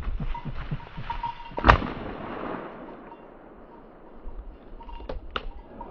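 A single shotgun shot about a second and a half in, its echo trailing off through the forest over the next second. Two short, sharp clicks follow near the end.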